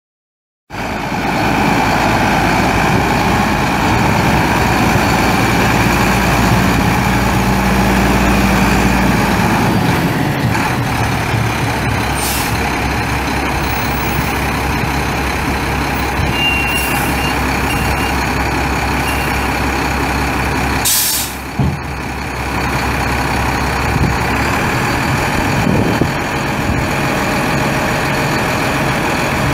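Freightliner FLD dump truck's Cummins ISC 8.3-litre inline-six turbo diesel running, its low steady tone dropping in pitch about a third of the way in. Two sharp hisses of released air, the second the stronger, come about midway and about two-thirds of the way through.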